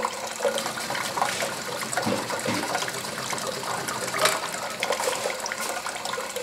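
Steady rush of running water from the pumped cooling line of an antique Essex hot air (Stirling) engine, with irregular light clicks and knocks from the engine as it is flicked over by hand and its flywheel spins. A sharp knock comes right at the start, where the hand sets it going.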